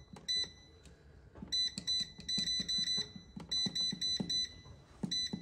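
Cosori air fryer's touch control panel beeping with each button press as the cook time is set, short high beeps in quick runs of about three to four a second, each with a soft fingertip tap.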